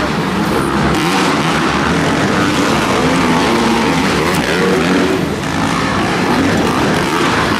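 Several motocross dirt bikes racing together, their engines revving up and down over and over as the riders work the throttle through jumps and turns.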